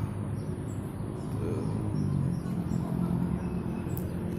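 Steady low rumble of a motor vehicle engine or passing traffic, with faint bird chirps over it.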